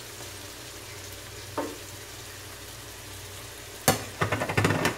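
Chicken liver and freshly added diced tomatoes sizzling steadily in a hot tawa. Near the end a wooden spoon knocks once against the pan, then scrapes and stirs the mixture in a quick run of strokes.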